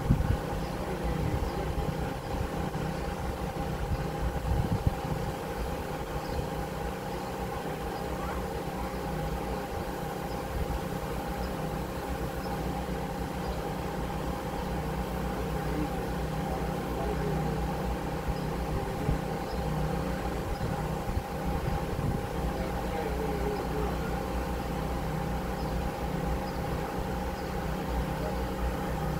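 Steady machine hum with two held tones over a low rumble, with irregular gusts in the low end.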